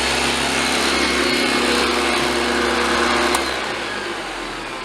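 Hoover Junior model 1348 upright vacuum cleaner's motor running loud and steady, then a click about three and a half seconds in as it is switched off, and the motor winds down.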